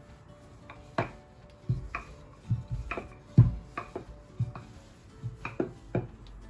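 Rolling pin knocking and thudding on the work surface as pastry dough is rolled out: about a dozen irregular knocks, the loudest about three and a half seconds in. Faint background music runs underneath.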